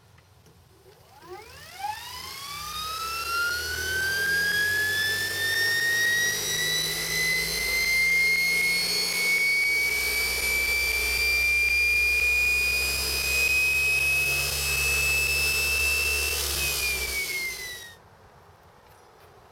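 SepEx starter-generator DC motor spinning up under its motor controller. The high whine rises steeply in pitch over the first couple of seconds, then keeps climbing slowly as the motor winds up to speed, with a low hum beneath. Near the end the pitch starts to fall, and then the sound cuts off.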